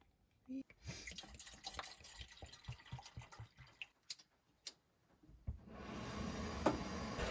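Water trickling and dripping into a pot, with small clicks and knocks as the pot is handled. About five and a half seconds in there is a click, then a steady rushing noise that builds and holds.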